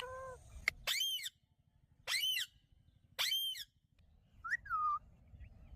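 Pet green parrot giving a string of short whistled calls, about one a second with short pauses between, ending in two quicker falling calls.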